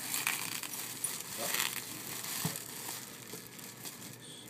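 Clear plastic wrap crinkling as hands pull and peel it from around a helicopter canopy, busier in the first couple of seconds, then fainter.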